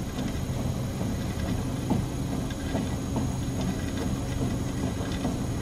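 Steady low mechanical rumble with many light, irregular clicks and ticks over it.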